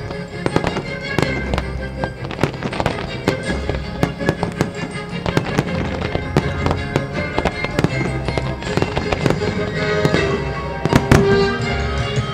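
Fireworks display: a dense run of bangs and crackling as shells burst and fans of comets fire, a few heavier bangs near the end, with the show's music playing underneath.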